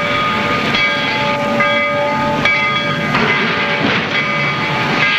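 Freight train rolling along the track: a dense, steady rumble and rattle of the cars, with several high, steady whining tones over it that shift every second or so.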